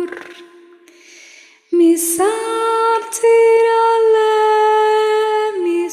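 A woman singing a chant-like mantra solo and unaccompanied in long held notes. A note ends at the start, and after a short pause she begins the next phrase about two seconds in, holding each note and stepping between pitches.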